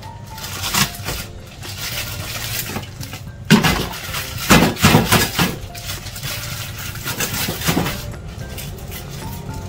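Plastic bag crinkling and rustling as it is handled, with a few loud rustles around the middle and another near the end, over soft background music.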